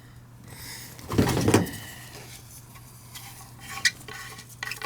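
Small hard plastic pipe caps and fittings clattering and clicking as they are rummaged through and handled, with a louder clatter about a second in and a few sharp clicks later on.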